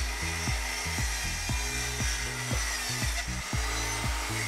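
Bosch corded circular saw cutting through a length of exotic hardwood, running steadily under load with a high whine. Background music with a steady beat plays underneath.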